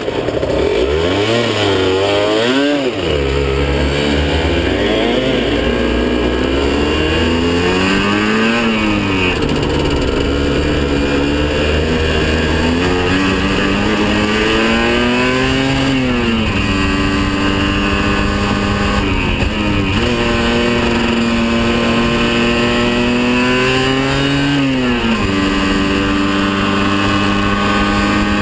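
Aprilia RS 50's two-stroke 50 cc single-cylinder engine heard from a camera on the bike, revving up and dropping sharply in pitch about six times as it accelerates through the gears, then holding a steady pitch near the end.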